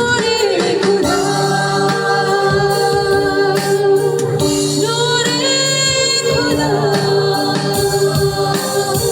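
Worship music: singing with a held, sustained accompaniment.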